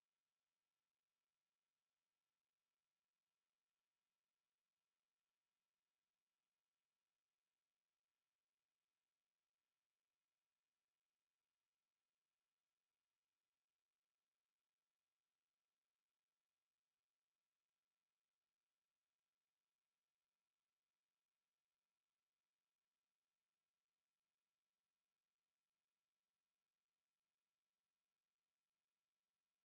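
A steady 5184 Hz sine-wave test tone, a single pure high-pitched tone held at constant pitch and level.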